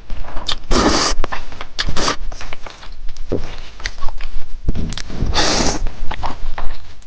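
Close-miked eating sounds: wet chewing with quick lip smacks and clicks, and two longer slurps, one about a second in and one about five and a half seconds in, typical of slurping spicy noodles.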